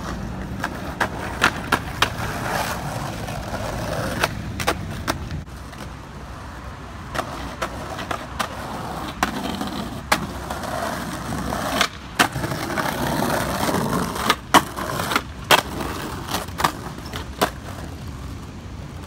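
Skateboard wheels rolling over stone paving, broken by a series of sharp wooden clacks as the board is popped and lands, a dozen or more times through the stretch.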